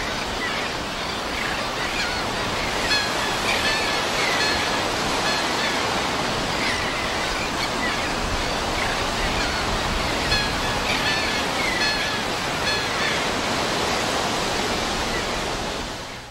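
Ocean surf washing steadily, with birds giving short calls over it now and then; the sound fades out near the end.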